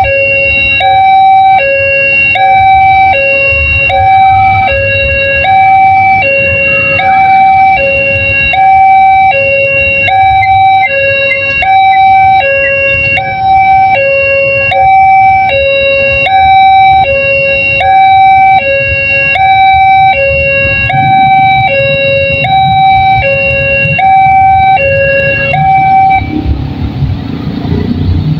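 Railway level-crossing warning alarm repeating a two-tone electronic chime, a high note and a low note alternating about once a second, over the low rumble of the passing Putri Deli passenger train and waiting motorbikes. The alarm stops about 26 seconds in, and engine and traffic noise rise as the barrier lifts and vehicles move off.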